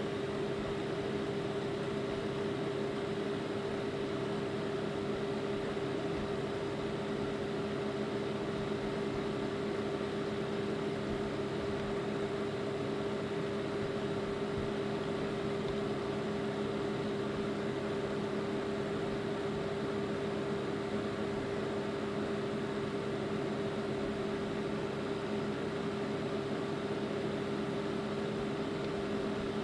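A steady machine hum with a constant pitch over an even hiss, unchanging throughout.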